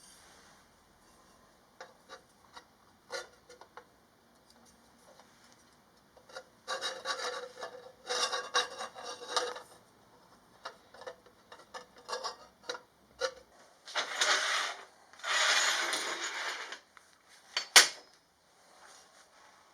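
Hand filing on metal: short runs of rasping strokes, with scattered clicks and one sharp knock near the end.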